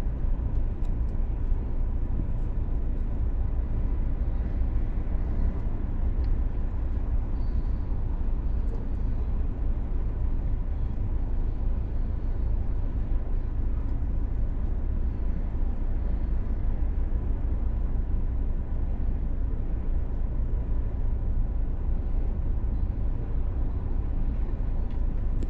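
Steady low rumble of a vehicle idling in stopped traffic, heard from inside its cabin, with a faint steady high whine.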